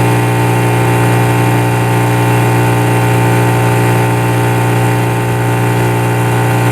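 Outboard motor running steadily at full power on a moored boat, a constant, even drone with no coughs or splutters: the engine is running sweet.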